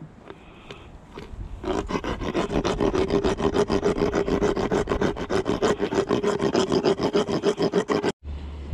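Hand dental float rasping a horse's teeth: quick back-and-forth filing strokes, several a second, that start about two seconds in and stop abruptly near the end. This is floating, filing down the rough edges of the molars.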